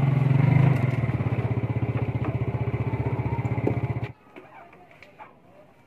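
Small motor scooter engine running at low revs with an even, fast pulse, then switched off and cutting out suddenly about four seconds in, leaving a few faint clicks.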